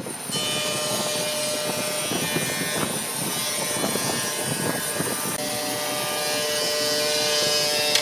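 Steady drone of woodshop machinery running, with a strong high hiss and a few held tones, growing slightly louder near the end.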